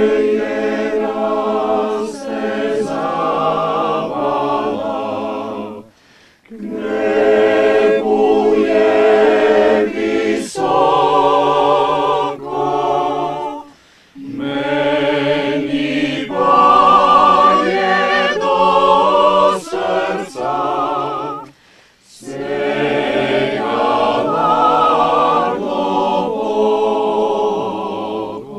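Mixed choir of men's and women's voices singing a cappella in four long phrases, with short breaths between them.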